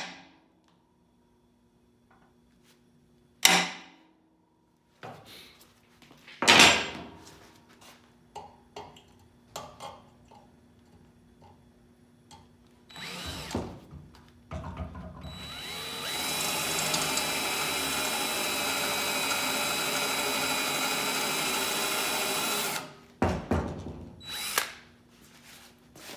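A cordless drill bores into the steel shock mount bracket on a car frame rail: a couple of short bursts just past halfway, then a steady run of about seven seconds, then a few short bursts near the end. Before the drilling come three sharp knocks a few seconds apart.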